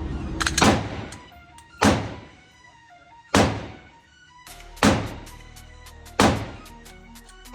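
9mm pistol shots fired at a slow, steady pace, about one every second and a half, with background music underneath.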